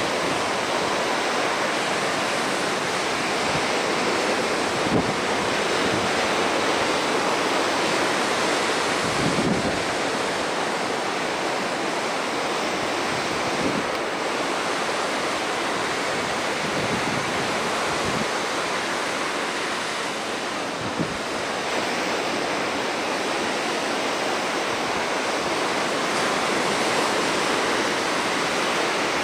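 Ocean surf breaking on a beach: a steady rush of waves, with a few brief low bumps of wind on the microphone.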